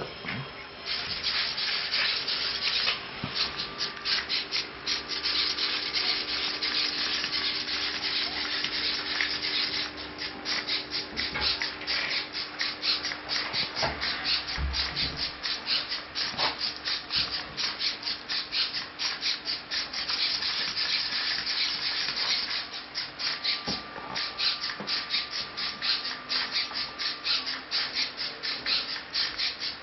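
Metal-gear hobby servos (MG995) of a six-legged walking robot whirring in quick bursts as its legs step, with the feet scraping and tapping on a carpeted floor in a continuous rapid rustle.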